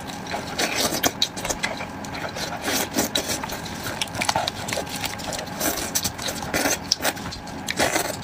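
Close-miked eating of a sauced sheep's head: wet chewing and mouth clicks, with meat being torn apart by gloved hands and irregular crackling throughout.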